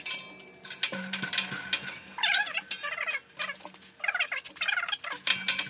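Hydraulic shop press bending quarter-inch steel plate under about 12 tons of load: short wavering squeaks every second or so, over a run of clicks and knocks.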